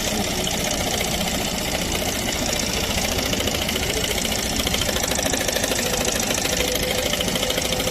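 Yamaha NMAX scooter's single-cylinder engine idling with its CVT belt and clutch removed, with a steady, fast knock from inside the engine. The mechanic judges it to be connecting-rod knock.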